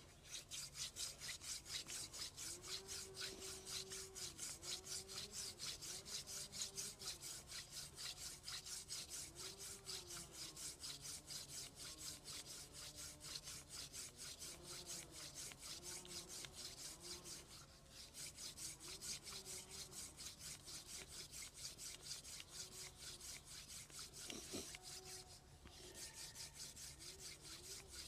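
Hand drill for friction fire: a wooden spindle spun back and forth between the palms in a wooden hearth board, giving a rapid, rhythmic dry rubbing with short squeaks of wood on wood. The rubbing breaks off briefly twice, about two-thirds of the way through and again near the end, then carries on.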